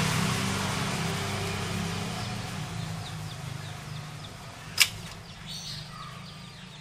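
A motor vehicle's low engine hum fades steadily away, with one sharp click about five seconds in.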